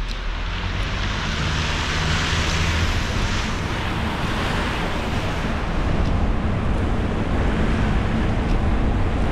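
Car driving on a rain-soaked road: a steady hiss of tyres on wet pavement over a low rumble of road and engine noise. The hiss swells briefly about two seconds in.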